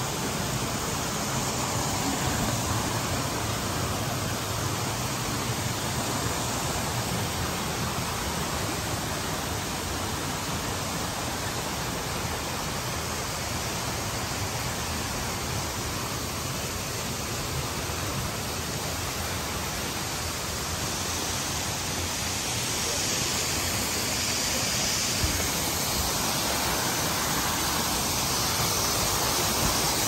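Steady rush of water running over the rocks of a shallow forest stream, an even hiss with no break.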